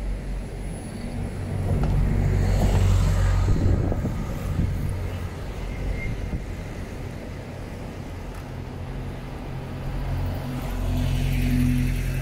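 Road traffic: a low, steady rumble of cars, swelling as vehicles pass about two seconds in and again near the end.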